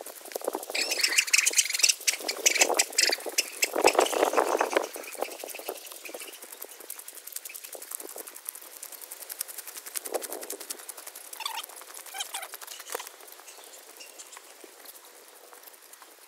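Footsteps crunching on a gravel road: a dense patter of small crunches, loudest in the first few seconds and softening near the end as the walking moves onto grass.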